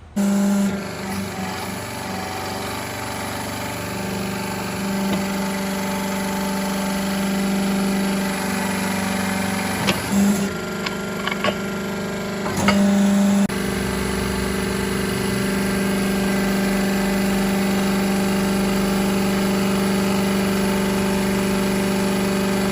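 A steady mechanical hum from a running motor, with a few sharp metal clicks about halfway through.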